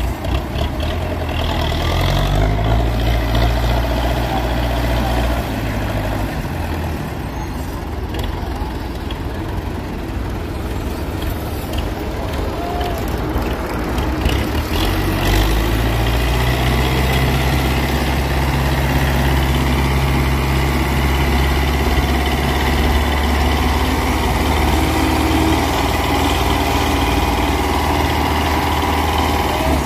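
Tractor's diesel engine revving hard while pulling a trolley heavily overloaded with sugarcane. The pitch climbs in steps at the start and holds, eases off about six seconds in, then climbs again about halfway through and stays high to the end.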